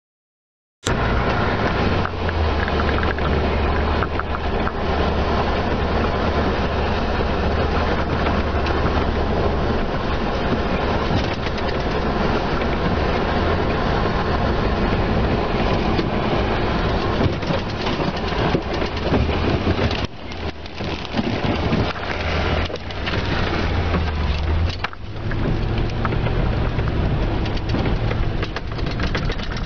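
Rain and wind noise against a patrol car, dense and crackly, over a steady low engine hum; it cuts in suddenly about a second in.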